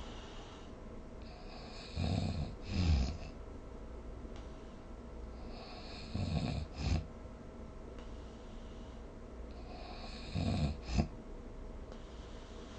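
Snoring, three snores about four seconds apart. Each is a rough breath in two pulses, ending in a short, sharp snort.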